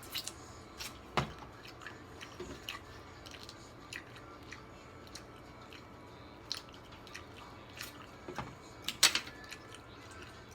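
Close-up eating of a seafood boil: chewing with scattered sharp clicks and cracks, the loudest about a second in and a cluster near nine seconds.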